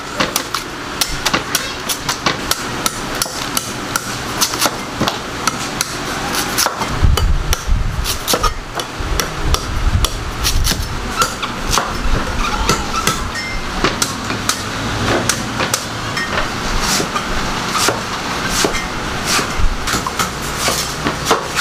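Knife blade chopping into the husk of a young coconut: a quick, irregular run of sharp knocks, several a second.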